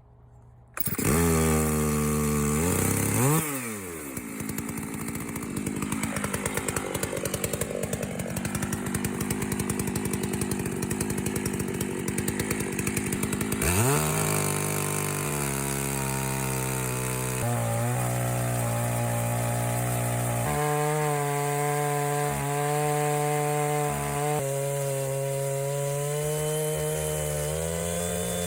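Chainsaw on an Alaska chainsaw mill with a 36-inch ripping bar, running hard as it rips oak into slabs. It revs up about a second in, drops back, then revs up again about halfway through and holds at high speed, its pitch shifting now and then under the load of the cut.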